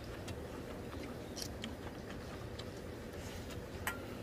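Quiet eating: chewing, with a few faint clicks of a spoon against a stainless steel bowl and a light metallic clink near the end.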